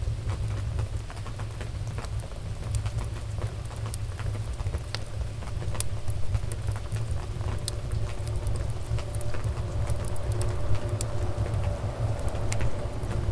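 Wood fire crackling in a fireplace: irregular sharp pops and snaps over a steady low rumble. A faint steady hum comes in about halfway through.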